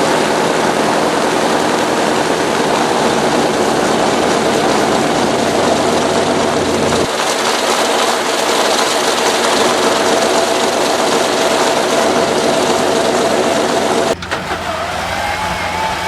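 Old propeller aircraft engine running loud and steady at close range. About fourteen seconds in it cuts suddenly to a quieter engine sound with a faint rising whine.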